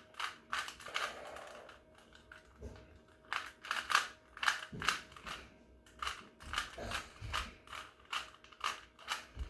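Rubik's cube being turned by hand: quick irregular runs of plastic clicks as the layers are twisted.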